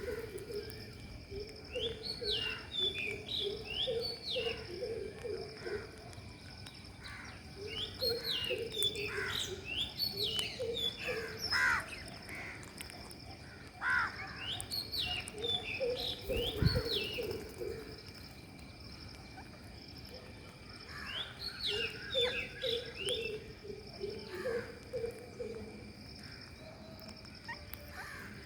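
Birds chirping and calling in four repeated bouts of a few seconds each, high chirps over lower warbled notes, with a faint steady high-pitched tone underneath. A single sharp knock comes about two-thirds of the way through.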